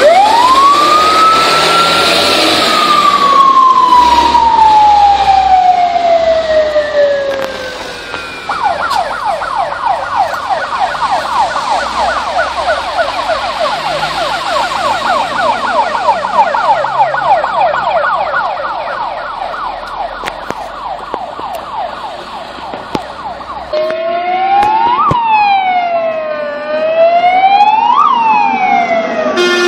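Fire engine sirens turning out: a slow wail that rises and then falls away over several seconds, then a rapid yelp for about fifteen seconds, then a slow wail sweeping up and down twice. The first wail comes as the Jelcz GCBA fire engine pulls out.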